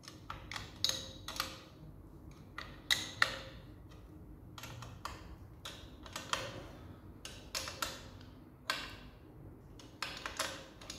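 A spanner working the carburettor mounting nuts on a Land Rover Series 2A engine as they are tightened: irregular sharp metallic clicks and taps, a few each second, some ringing briefly.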